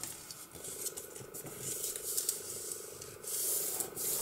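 Hands rubbing and smoothing folded paper on a cutting mat: soft paper rustling and scraping, louder for a moment a little past three seconds in.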